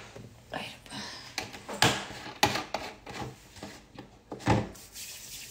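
Scattered knocks and clunks of things being handled around a kitchen counter, with a louder thump near the end.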